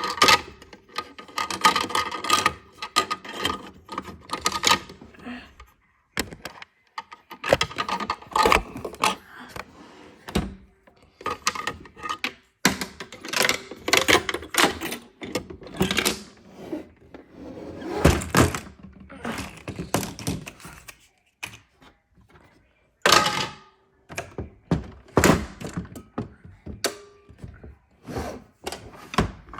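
A long run of irregular knocks and thuds, some sharp, with short gaps between them.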